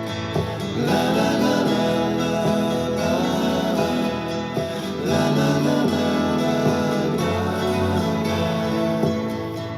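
Background music: an acoustic guitar song with a sung vocal line.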